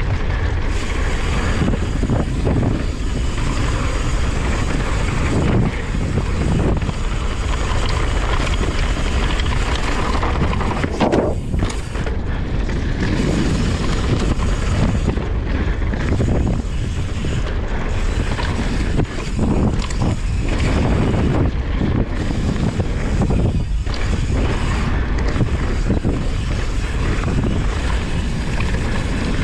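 Wind buffeting a GoPro's microphone as a mountain bike rides fast down a dirt singletrack, over a steady rumble of knobby tyres rolling on dirt and gravel.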